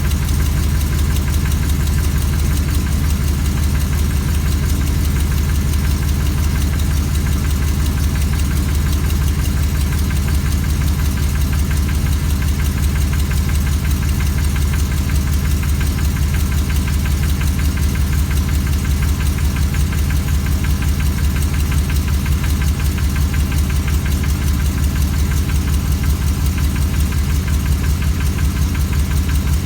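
2004 Chevrolet Silverado's 6.0-litre LQ4 V8 idling steadily with an even, rhythmic knock. The owner hears this knock on a cold start and finds it quiets once warm; he is unsure whether it is rod knock, a lifter, piston slap or the flex plate.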